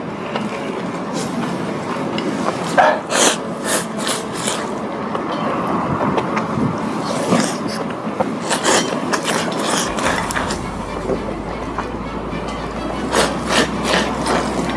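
Ramen noodles slurped fast, in several clusters of short, noisy slurps, over a steady background din.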